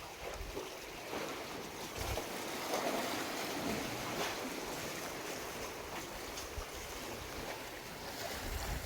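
Sea waves washing around a tetrapod breakwater: a steady hiss of surf, with a little wind on the microphone.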